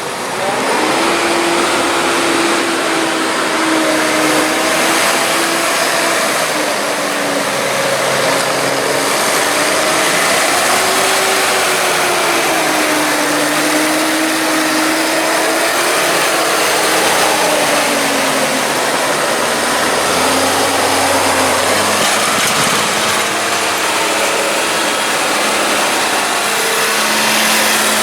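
Tractor engine running, its pitch rising and falling as it revs up and down, over a steady mechanical noise. It settles to a steadier, lower note about three-quarters of the way in.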